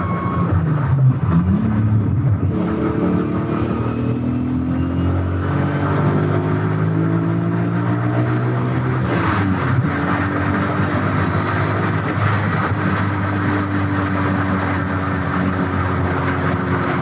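Turbocharged VR6 engine of a VW Golf 3 at full-throttle acceleration, heard inside the cabin, running at its lowest boost setting (wastegate spring pressure, about 0.9 bar). The revs climb towards the redline with a faint turbo whistle rising alongside. The pitch drops at an upshift about nine seconds in, then climbs again more slowly.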